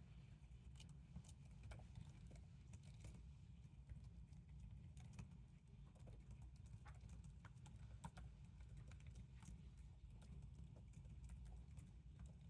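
Near silence: faint, irregular laptop keyboard typing over a low, steady room hum.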